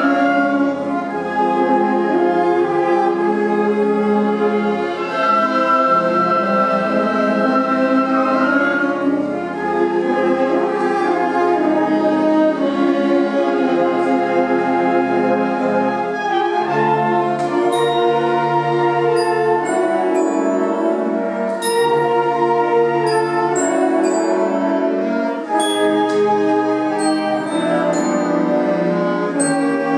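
Student symphonic band playing, with flutes, clarinets, saxophones and low brass holding full chords that shift together. From about halfway through, short high ringing percussion strokes join in.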